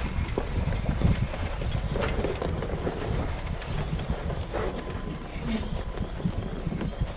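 2WD Ford Ranger pickup crawling over a rocky trail: a steady low rumble of engine and tyres, with scattered knocks and rattles as the truck works over the rocks.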